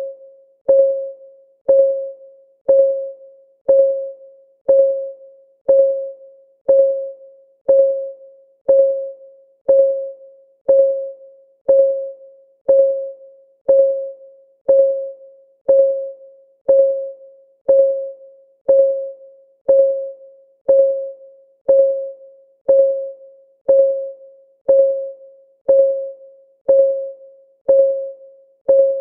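Countdown timer's clock-ticking sound: a steady tick about once a second, each a short, clean tone that fades away quickly.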